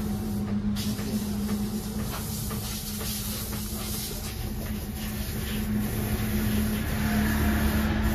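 A motor running steadily with a constant, unchanging hum.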